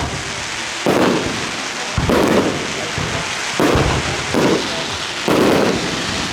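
Aerial fireworks shells bursting: about five loud booms at uneven intervals, each trailing off in a long fading rumble, with crackling between them.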